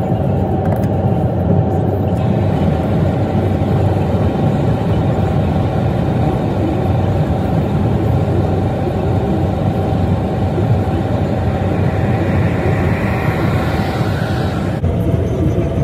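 Steady rumble of a moving road vehicle, with a hiss that builds over the last few seconds and then cuts off sharply.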